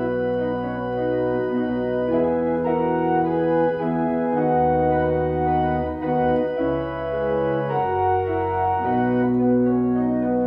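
Two-manual electronic church organ playing slow, held chords over low bass notes, the chords changing about once a second.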